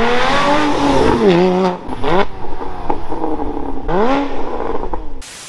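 Porsche Cayman GT4's 3.8-litre flat-six, breathing through a full IPE exhaust, revving: one long climb that drops back about a second in, then two shorter blips up and down.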